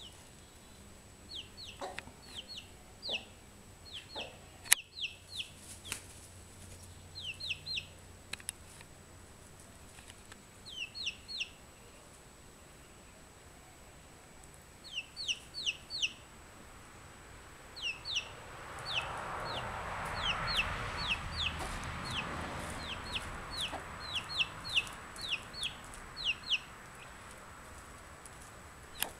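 Young chicken chick peeping: short, high, falling peeps in quick clusters of two to four, coming on and off. A single sharp click about five seconds in, and a soft rushing noise that swells and fades in the middle of the stretch.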